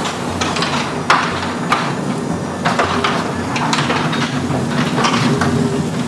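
Chamberlain garage door opener running as it raises a sectional garage door: a steady motor hum with scattered clicks and rattles from the door.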